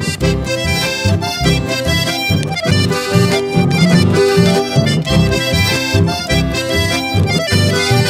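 Instrumental chamamé, with accordion playing the melody over a steady rhythmic accompaniment.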